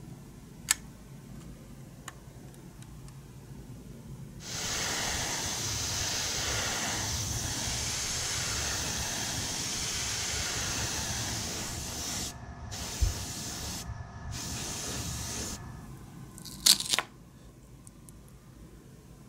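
Airbrush spraying paint onto small model-car wheels: a steady hiss that starts about four and a half seconds in, cuts out twice for a moment, and stops about eleven seconds later. A few sharp clicks come before and after the spraying.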